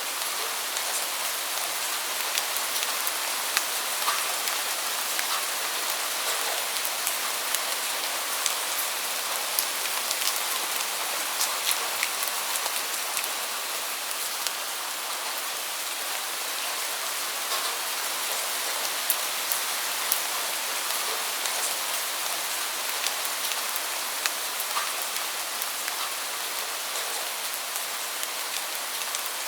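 Steady rain: an even hiss with scattered sharper ticks of individual drops landing close by.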